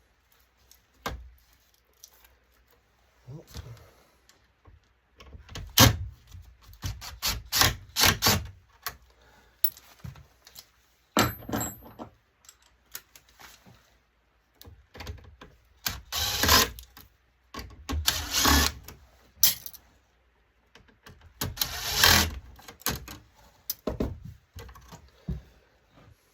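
Metal and plastic parts of an LCD monitor being handled and pulled apart: irregular clicks, knocks and clattering rattles, in several separate spells with short pauses between them.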